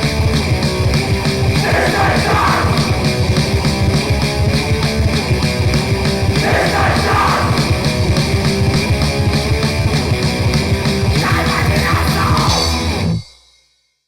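Raw, noisy grindcore: heavily distorted guitars, bass and very fast drums in a dense wall of sound. It cuts out about thirteen seconds in as the track ends, leaving silence.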